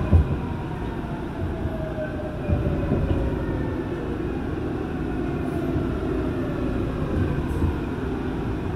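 Seoul Line 8 subway train running along a station platform, heard from inside the car: a steady rumble of wheels on rail with a motor whine that slowly falls in pitch as the train slows, and a few low thumps.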